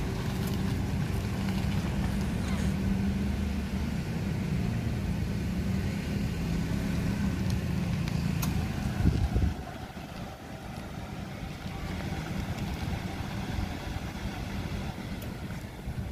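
Toyota Avanza's engine running at low speed as the car pulls into a parking space close by, a steady low rumble. About nine seconds in there is a thump, after which the rumble drops away to a quieter background.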